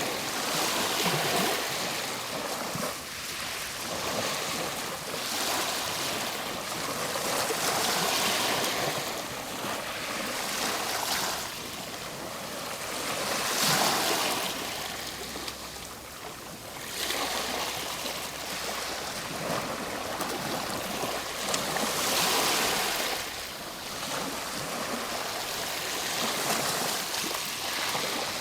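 Ocean waves breaking and washing on a shore, a steady rush of surf that swells and ebbs every few seconds.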